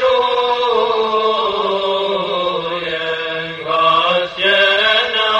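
A nasheed: a voice chanting long, gliding melodic phrases over a steady low held drone, with a short breath-break about four seconds in.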